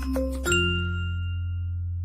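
Music: quick bell-like mallet notes over a bass line, ending about half a second in on a struck chord that rings out and fades over the held bass.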